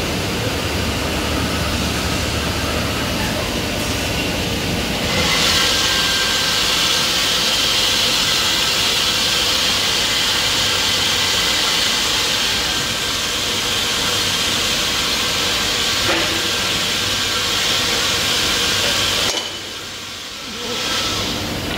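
Biesse CNC machining centre running, a steady mechanical hiss that gets louder about five seconds in and dips briefly near the end.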